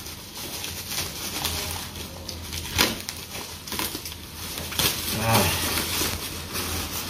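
Plastic bubble wrap crinkling and rustling as it is cut open with a utility knife and pulled apart, with sharp crackles, the loudest about three seconds in. A short low vocal sound about five seconds in.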